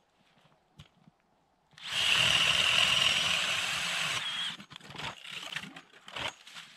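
Hand ice auger boring through ice: a steady grinding scrape starting about two seconds in and lasting a couple of seconds, then a few shorter, uneven scrapes.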